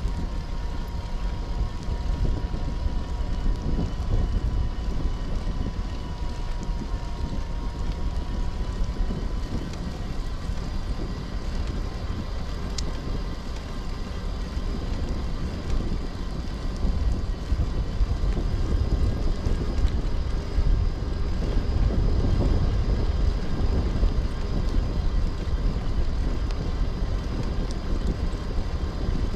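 Wind rumbling on a camera microphone, with a faint steady whine underneath.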